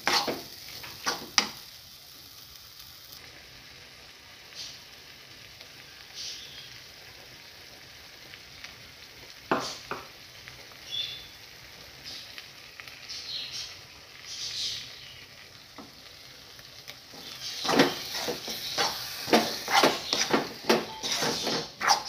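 Steel spoon stirring and scraping prawn gravy in a black iron kadai: a few quick scraping strokes at the start, then only a few light clinks for a long stretch, then brisk rapid scraping strokes again for the last few seconds.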